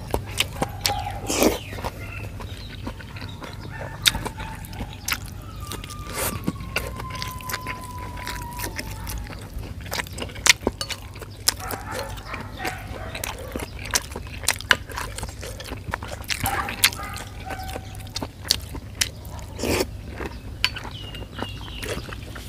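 Eating sounds: a metal spoon clicking and scraping against an earthenware bowl of raw pork blood soup, with chewing and mouth noises, heard as a string of short sharp clicks over a low steady hum.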